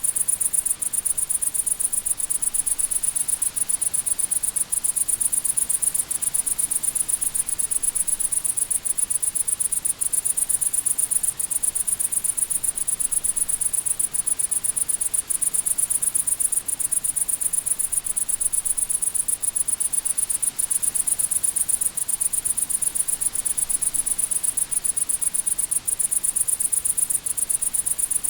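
Crickets chirping in a steady, rapid high-pitched trill that never lets up, over a faint background hiss.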